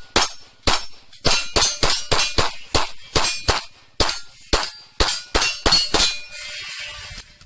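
Rapid pistol fire, more than a dozen shots in quick uneven strings, with steel targets clanging and ringing after the hits.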